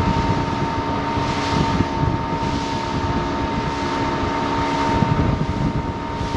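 Outboard motor of a small fishing boat running steadily at speed, a steady whine over a low rumble, with rushing wind on the microphone.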